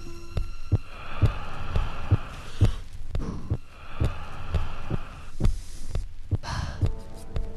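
Soundtrack of a steady, heartbeat-like low thump about twice a second under hazy, humming electronic tones. A short swish comes near the end, followed by a new held tone.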